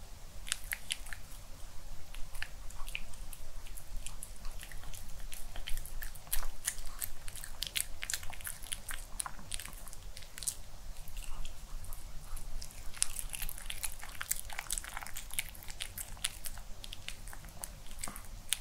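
White Pomeranian chewing a crispy chicken cheese cutlet: quick, irregular crunches and bites.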